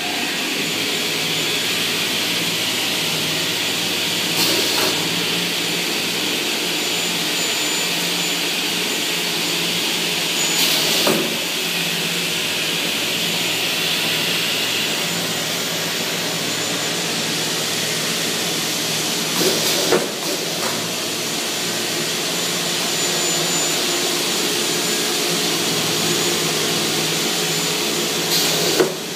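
5128 aluminium corner-cutting saw running steadily with a loud hissing whine. Four brief louder bursts come several seconds apart.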